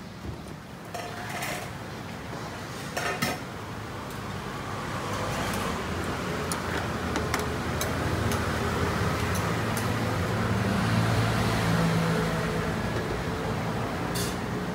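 Dishes, pots and utensils clinking now and then in a food-stall kitchen, over a steady low rumble of background noise that swells in the middle.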